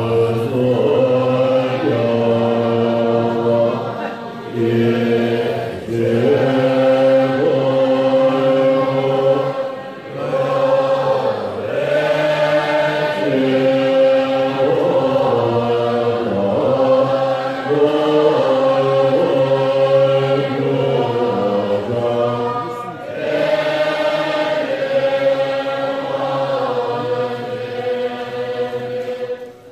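Large assembly of Tibetan Buddhist monks and nuns chanting prayers in unison: a held low pitch under a slow melodic line, sung in long phrases with short breaks between them.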